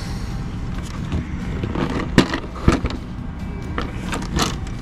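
Carbon-fibre air duct handled and turned over on a cloth tarp: a few scrapes and hollow knocks, the loudest two about two seconds in and half a second apart, with another near the end, over a steady low rumble.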